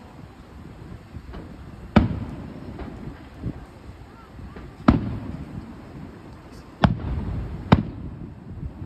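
Aerial firework shells bursting: four sharp booms, the last two close together, each followed by a rolling low rumble, with a few fainter pops between them.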